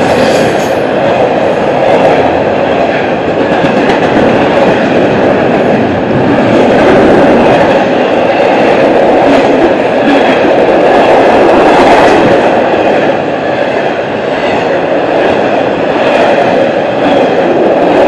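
Double-stack intermodal freight train's container cars rolling past close by: a loud steady noise of steel wheels on rail, with clickety-clack as the wheels pass over rail joints.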